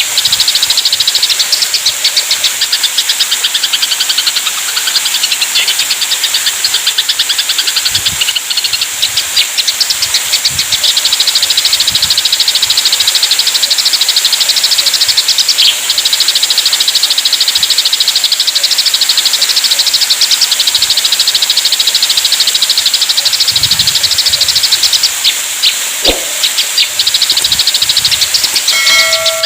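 Eurasian tree sparrows chattering in a fight: a dense, unbroken stream of rapid, high chirps over a steady high hiss.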